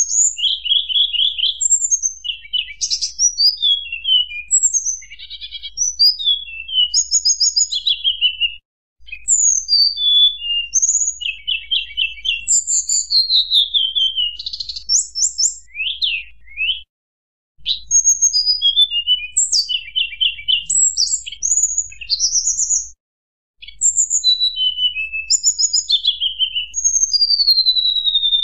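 Tledekan gunung songbird singing fast, varied phrases of high whistles, rapid trills and sliding notes, run together almost without pause. The song stops briefly three times.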